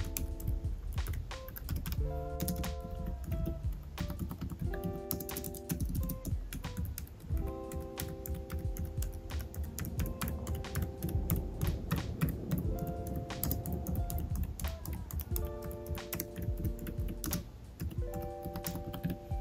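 Typing on a Logitech K380 Bluetooth keyboard: a quick, irregular run of soft clacks from its round, low-profile keys. Gentle background music plays under the typing.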